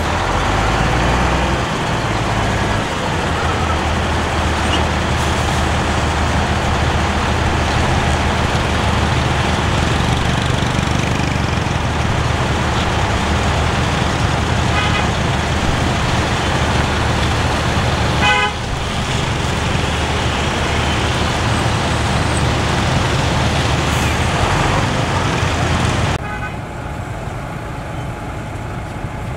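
Heavy truck diesel engine running steadily, with short horn toots a couple of times in the middle and again at the end. Near the end the sound drops suddenly to a lower level.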